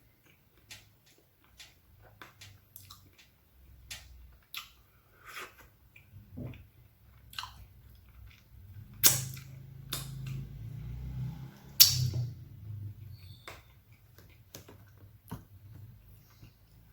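Close-miked eating of a Crispy Choco Monaka ice cream sandwich: crisp wafer and chocolate crunching under the teeth, with scattered small mouth clicks and chewing. Two loud crunchy bites come about nine and twelve seconds in, with chewing between them.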